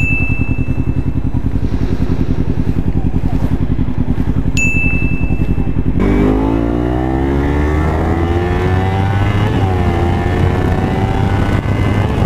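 Kawasaki Ninja 300 parallel-twin engine with an Akrapovič exhaust idling with an even pulse, with a short electronic beep about four and a half seconds in. About halfway through, the motorcycle accelerates, the engine pitch rising, dipping briefly at a gear change and then holding steady at speed.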